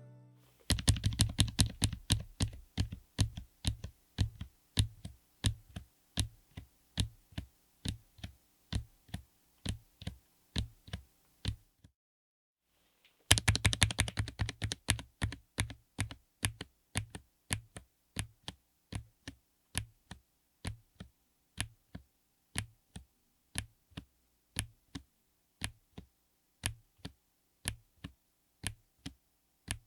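Low-profile mechanical keyboard fitted with Kailh Spring Mini linear switches (PC top housing, POM bottom housing) being typed on; a deep, poppy keystroke sound. Two runs of typing, each starting in a quick flurry and slowing to about two or three separate keystrokes a second, with a brief silent break near the middle.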